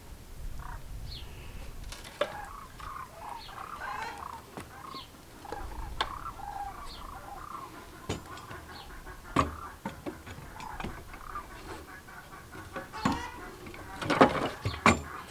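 A dry pallet board being pried up with a pallet buster: sharp cracks and knocks of the wood and nails giving way, with the loudest cluster of cracks near the end as the board breaks free. Chickens cluck and other birds chirp in the background.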